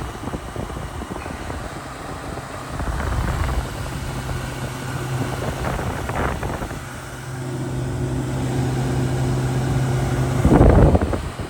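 Frigidaire window air conditioner running: a steady rush of fan air with a low hum. Near the end comes a brief loud rumble.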